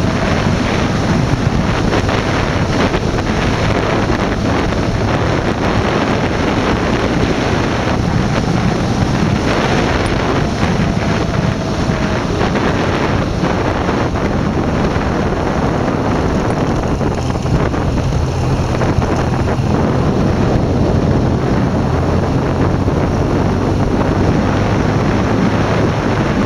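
Heavy wind rushing over the microphone of a motorcycle riding at steady speed on a gravel road, with the BMW R1200GS Adventure's boxer-twin engine running steadily underneath.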